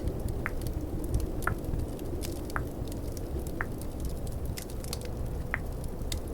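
Tongue clicks, five in all, about one a second with a gap near the end, over a steady low rumble of snowstorm and fireplace ambience with faint crackles.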